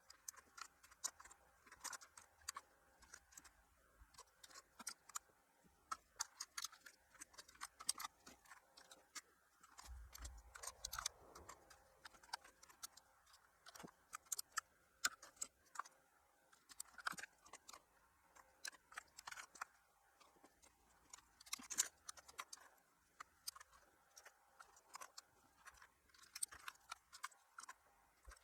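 Faint, irregular plastic clicks of keycaps being pressed back onto a computer keyboard's switches, several a second with short pauses between.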